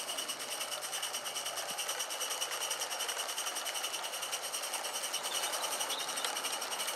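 Live-steam model of the Lynton and Barnstaple locomotive Lew running along garden track: a rapid, steady chuffing of its exhaust mixed with the hiss of escaping steam.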